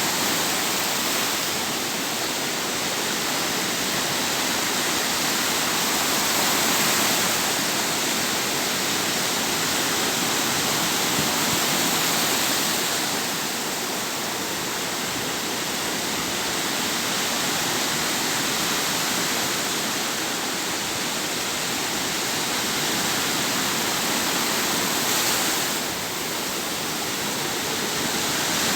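Sea waves washing on the shore: a steady, loud rush of surf that swells and eases gently every few seconds.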